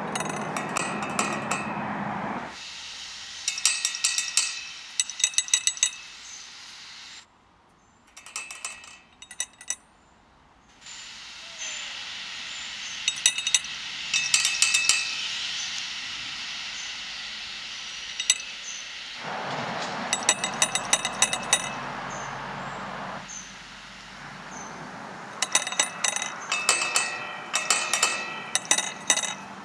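Metal gate latch flicked and rattled by hand, giving several bursts of sharp metallic clinks. It is heard through an Android phone's Sound Amplifier app, the background hiss stepping up and down in level as the boost settings change.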